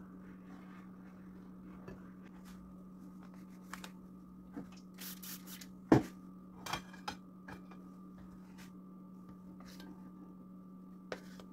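A few short spritzes from a hand-held plastic spray bottle about five seconds in, then a sharp knock and a few light clicks of tools being handled. A steady hum runs underneath.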